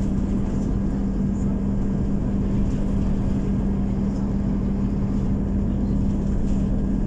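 Scania OmniCity city bus driving, heard from inside the passenger cabin: a steady engine drone with a constant hum and low road rumble.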